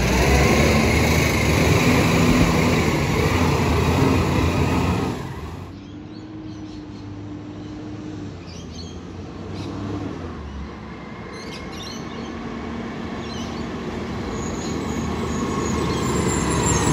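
Garbage truck's engine running loud and close, cut off abruptly about five seconds in. After a quieter moment, a heavy Iveco truck approaches along the road, growing steadily louder toward the end.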